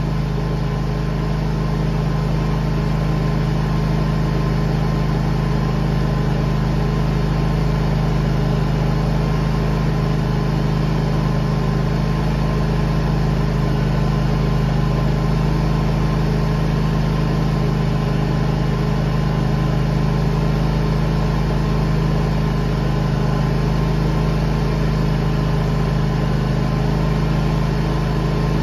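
An engine idling steadily at an even pitch, with no revving or change throughout.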